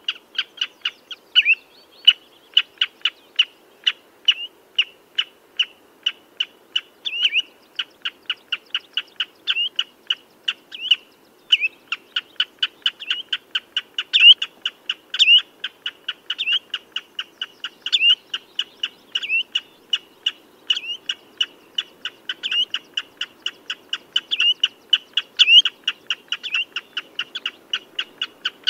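Common redshank calling: a continuous run of short, sharp piping notes, about three a second, some louder notes with a quick upward slur.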